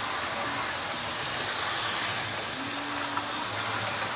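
Lionel 8350 U.S. Steel switcher locomotive pulling its freight cars around a loop of O-27 tubular track: a steady motor whir with light clicking of wheels over the track joints, a little louder as the engine passes close by.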